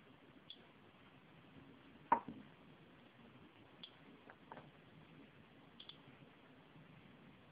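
Radiation detector (DETEKTOR DP-2) giving sparse, short high-pitched clicks, about four in all, each marking a detected particle of radiation. A single knock about two seconds in and a couple of light ticks a little later come from the uranium glass goblet and the detector being handled.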